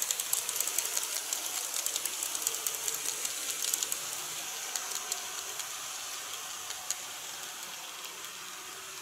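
Model electric train running along its track: rapid clicking of the wheels over the rail joints with a hissing motor whir. The clicks thin out after about four seconds and the sound fades as the train runs away.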